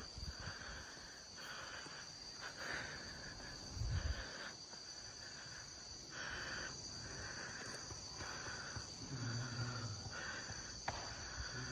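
Insects trilling steadily in two high, unbroken tones, with another insect chorus pulsing on and off every half second to a second. A brief low rumble of wind or handling on the microphone about four seconds in.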